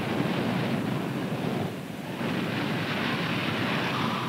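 Wind and heavy seas crashing over a surfaced submarine's bow, a loud steady rush that eases briefly about two seconds in.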